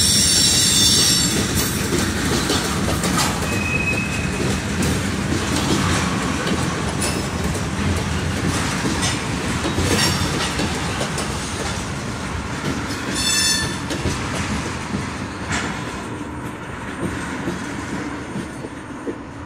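Freight train of tank cars rolling past, steel wheels clacking over the rail joints. A brief high wheel squeal comes right at the start and another about 13 seconds in. The noise eases a little near the end as the cars move away.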